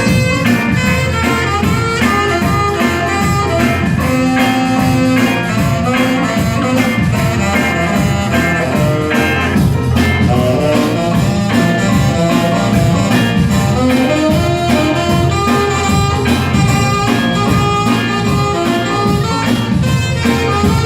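A live band playing a full song with a steady drum beat.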